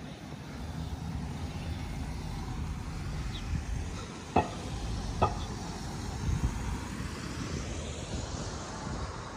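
Street traffic: cars driving past as a steady low rumble, with two sharp clicks near the middle, under a second apart.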